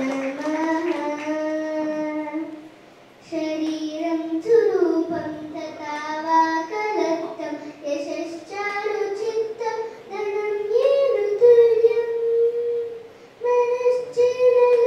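A young girl singing solo into a microphone with no accompaniment, holding long sustained notes, with two short breaks about three seconds in and near the end.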